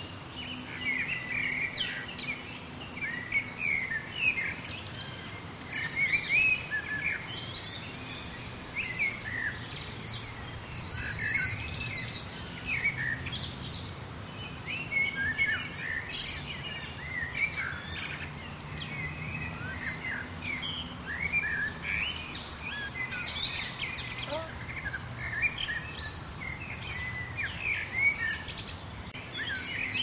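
Outdoor chorus of small birds chirping and twittering in many short, overlapping calls. A rapid, buzzy high trill comes in twice, about eight seconds in and again about twenty-one seconds in, over a faint steady background hum.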